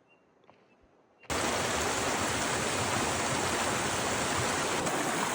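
Near quiet with a few faint ticks, then, a little over a second in, a sudden cut to the steady rush of a mountain creek's flowing water.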